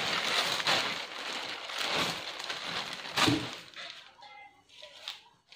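Cloth rustling and crumpling as fabric pieces are handled and arranged by hand, with a soft thump a little over three seconds in; the rustling fades after about four seconds.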